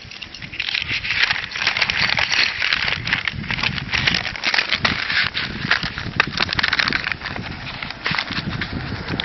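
Paper envelope and a sheet of paper crinkling and rustling as they are handled and folded: a dense crackle of small clicks.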